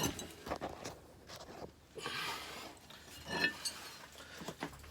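Scattered light clicks and clinks with a brief scrape about two seconds in, from objects being handled.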